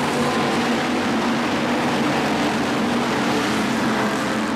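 A pack of dirt-track stock cars racing past, many V8 engines running together in one loud, steady drone.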